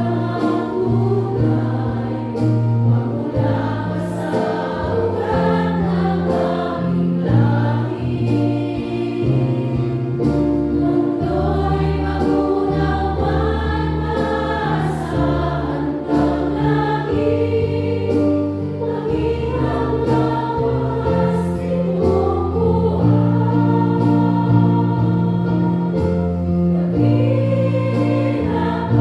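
A worship song sung by women's voices over an instrumental backing with a sustained bass line.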